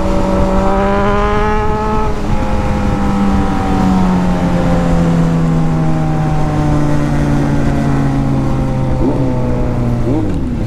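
Motorcycle engine running while riding, heard over a steady rush of wind noise: the engine note holds, then slowly drops as the bike slows, with two short rises and falls in pitch near the end.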